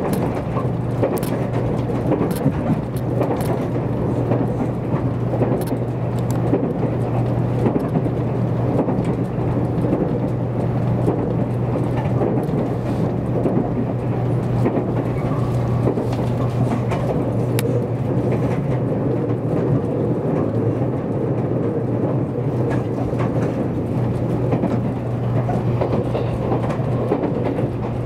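Interior running noise of a JR Kyushu 783 series electric limited-express train at speed: a steady rumble of wheels on rail with a low, even hum and scattered small clicks and rattles.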